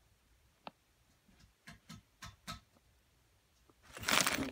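A few light clicks and taps of small parts and packaging being handled, then a louder rattling, rustling burst near the end.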